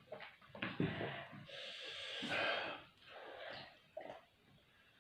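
A person breathing hard through the mouth in a few noisy, hissing breaths, the longest about a second and a half in. This is the reaction to the burn of very spicy pani puri water.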